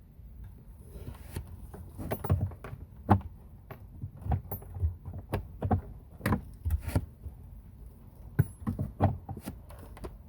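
Hands handling small hardware and tools: irregular clicks, taps and light knocks, a few a second, starting about a second in.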